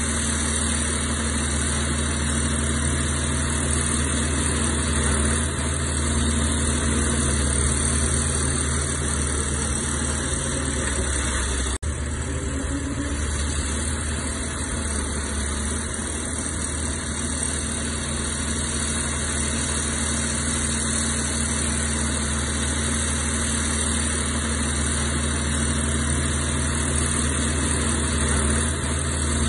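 Heavy diesel engine of earthmoving machinery running steadily, with a brief click and momentary drop about twelve seconds in.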